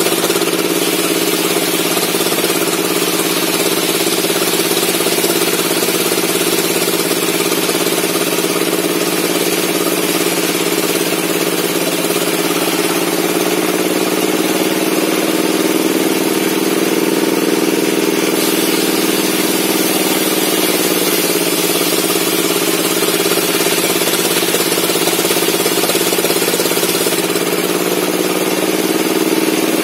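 Bench circular saw for sawing logs running steadily, its drive humming over a hiss; its pitch sags briefly a few times as the blade works through wood.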